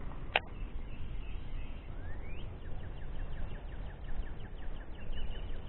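Outdoor ambience with a steady low wind rumble on the microphone and a small bird calling: a rising chirp about two seconds in, then a quick, even run of high ticks for about three seconds. A single sharp click comes about a third of a second in.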